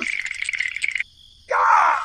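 Edited-in cartoon sound effect: a high steady chirring tone with fast ticks that stops about a second in, then after a short pause a brief rasping burst.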